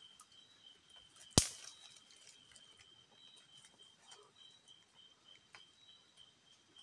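A single sharp shot about a second and a half in, from a hunter firing up into a tree at a rat, over a steady high insect trill.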